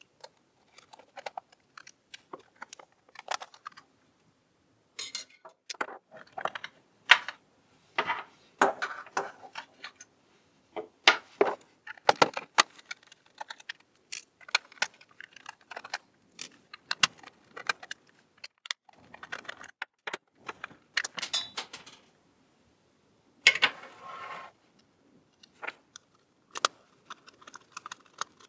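Irregular plastic clicks, knocks and short rattling scrapes as a small plastic toy RC remote control is handled and taken apart by hand.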